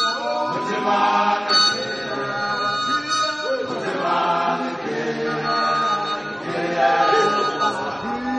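A group of men singing a Zulu song together, unaccompanied, in a choral chant.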